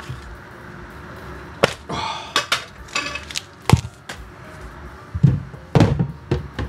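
Tins of liquid malt extract being handled and set down in a stainless steel sink: three sharp metallic knocks about two seconds apart, with light rustling between the first two.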